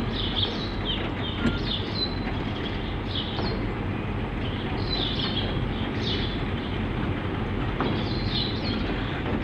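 Two EMD G22AR DC-class diesel locomotives running steadily as they slowly haul a train of loaded log wagons, with a steady low rumble. Birds chirp repeatedly at high pitch over it.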